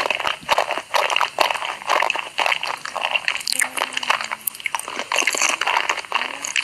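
Close-miked ASMR eating sounds: a quick, irregular run of crunchy bites and chewing, from a meal of noodles and corn dogs.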